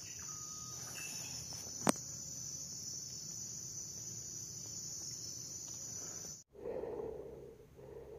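Insects chirring steadily in a high-pitched drone, with one sharp click about two seconds in. The chirring cuts off abruptly about six and a half seconds in, leaving a quieter low, wavering sound.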